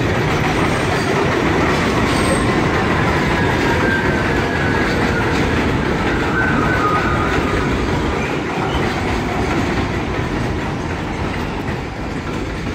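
NYC subway train of R42 cars rolling past close by on elevated track, its wheels clacking over the rail joints with a faint squeal. The loud, steady rumble eases off near the end.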